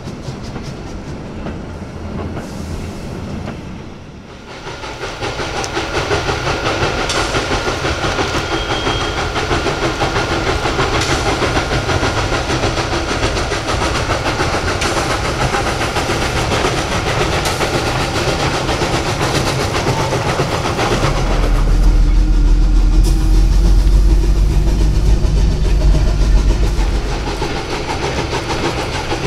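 Steam-hauled freight train of ČSD locomotive 423.0145: wagons clattering over the rail joints, then the steam locomotive working with a steady run of exhaust beats and hiss. A deep low rumble, the loudest part, comes for several seconds toward the end.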